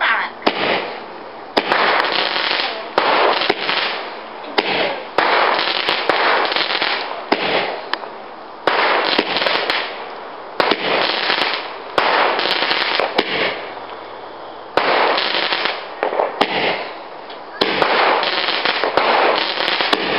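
Fireworks crackling in a string of loud bursts, each starting sharply and fading over a second or two, with a fresh burst every few seconds.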